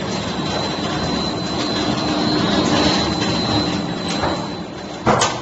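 Metal roofing sheet roll-forming machine running: a steady mechanical whir from the forming rollers and drive, with a thin high whine held throughout. It swells and then eases, and a sharp bang comes near the end.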